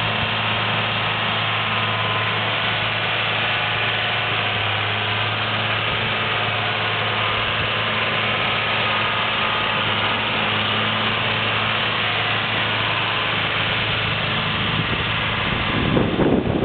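John Deere 4450 tractor's six-cylinder diesel engine running at a steady speed, with a constant low hum. About a second before the end a rushing, wind-like noise rises over it.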